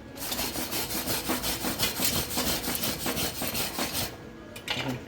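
Steel wire brush scrubbed rapidly back and forth over a fresh stick-weld bead to clean off the slag. The scraping stops about four seconds in.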